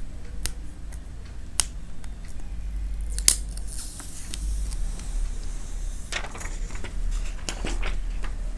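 A smartphone being handled: scattered sharp clicks and taps of fingers and the plastic body, with a brief rustle about four seconds in, over a steady low hum.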